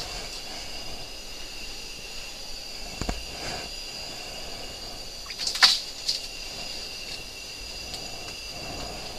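A few sharp knocks and bumps from gear being handled, about three seconds in and again twice near six seconds, over a steady high-pitched whine.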